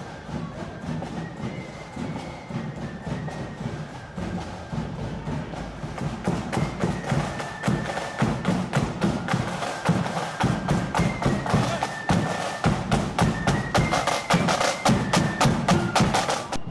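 Marching band playing as it passes: snare drums and a bass drum beating a steady marching rhythm, with a high melody of held notes carried above them. The band grows louder and the drumming denser from about the middle on.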